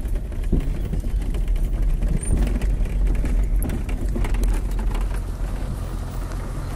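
Car driving slowly along a rough dirt track: a steady low rumble of engine and tyres, with frequent small knocks and rattles as it goes over bumps.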